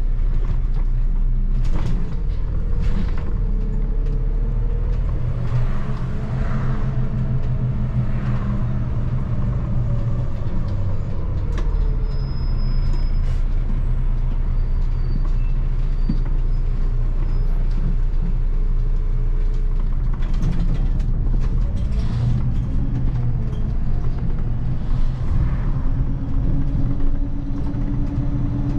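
Interior engine sound of a 2004 MAN 12.223 SLF city bus's 6.9-litre turbo diesel while driving, a steady low drone that rises and falls in pitch several times as the bus accelerates and its five-speed automatic gearbox changes gear.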